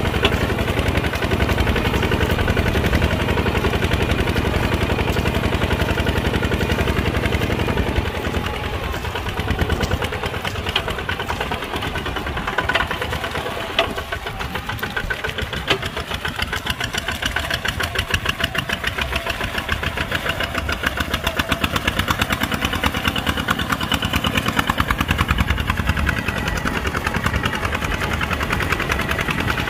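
Kubota RT140 walking tractor's single-cylinder diesel engine running with a rapid, even knock. It eases off and goes quieter about a third of the way in, then picks up and gets louder again for the last several seconds.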